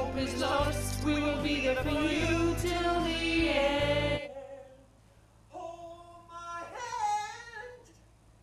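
A song with singing over a full backing with bass. About four seconds in the backing drops away, and the voice carries on softly with little accompaniment.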